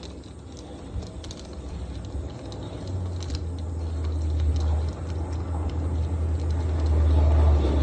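Light clicks of a doorknob's screws being backed out, under a low steady hum that comes in about three seconds in and grows louder.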